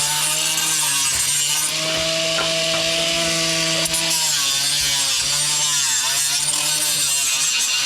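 Angle grinder cutting continuously, its motor note dipping and recovering several times as the disc bites under load, over a harsh grinding hiss.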